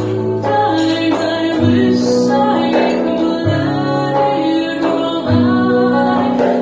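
A woman singing over chords on a Nord Electro 6 stage keyboard, the bass note changing about every two seconds.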